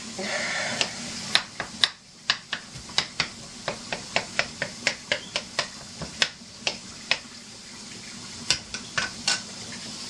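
A plastic spoon knocking and scraping against a stainless steel sauté pan as ground beef and green peppers are stirred: irregular sharp clicks, about two to three a second, that stop near the end. A steady hiss runs underneath.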